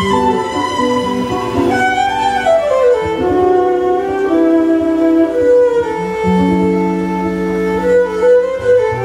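Live band playing instrumental music, a fiddle carrying the melody over bass and guitar, with a long falling run about two to three seconds in.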